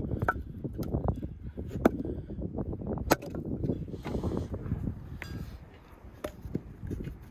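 Axe splitting firewood on a log chopping block: several sharp cracks as the blade strikes and splits the wood, spaced irregularly a second or more apart.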